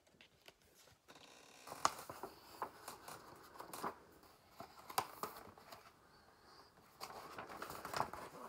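Pages of a picture book being handled and turned: paper rustling and crinkling, with scattered sharp clicks and taps.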